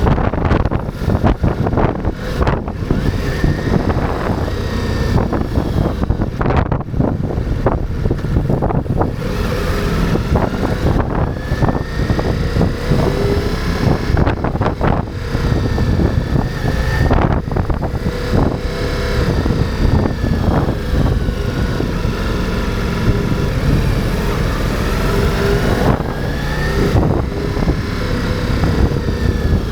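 Ducati Multistrada V4 motorcycle's V4 engine under way, revving up and easing off several times through the gears, with wind rushing over the microphone.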